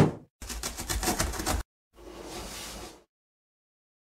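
Cartoon sound effects for a box animation: a sharp thump, then a rapid rattle lasting about a second, then a softer noisy swish about a second long, followed by silence.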